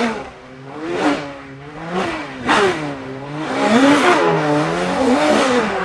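Car-engine revving sound, its pitch swooping up and down about once a second, with a hiss that grows louder over the second half.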